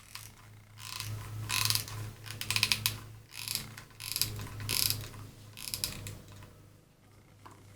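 Hot glue gun trigger being squeezed, a quick ratcheting click as it pushes the glue stick through, repeated in about six short spells. A steady low hum runs underneath.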